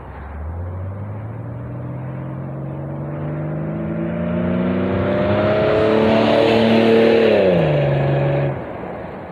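Jeep Cherokee XJ with a 2.5-inch side-exit exhaust and Nexus stainless muffler accelerating, its exhaust note climbing steadily in pitch and growing louder for about seven seconds. Near the end the pitch drops sharply, and the sound cuts off abruptly.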